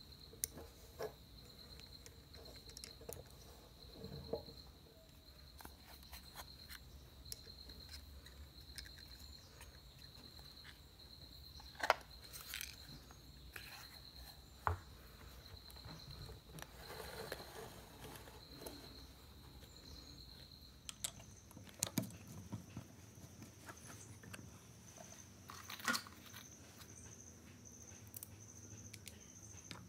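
Small clicks and knocks from handling the metal and plastic parts of a PA horn driver unit on a wooden table: its diaphragm and housing. Under them runs a steady, high insect trill like a cricket, which jumps to a higher pitch about two-thirds of the way through.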